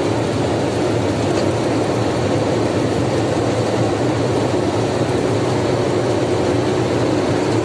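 Steady engine and road noise inside a lorry cab cruising at highway speed.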